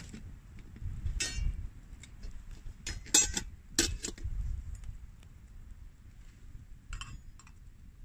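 Several short, sharp clinks and knocks of small hard objects being handled, loudest in a cluster about three to four seconds in, over a low steady rumble.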